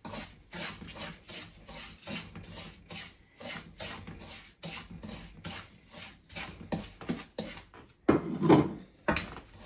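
A wooden spoon scraping and stirring semolina roasting in ghee in a non-stick pan, in quick, even strokes about three a second. There is one louder scrape a little over eight seconds in.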